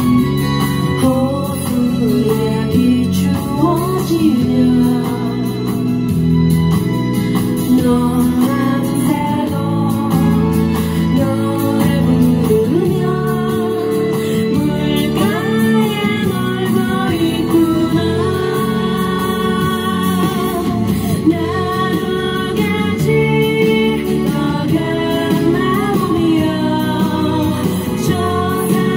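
A woman singing into a handheld microphone over instrumental accompaniment, amplified through PA speakers.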